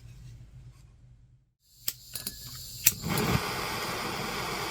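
A few sharp clicks, then about three seconds in a steady rushing noise starts up: a heating tool being switched on to warm hard pine tar pitch.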